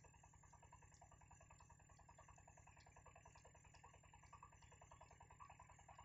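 Near silence: a faint, fast, even ticking over a low steady hum.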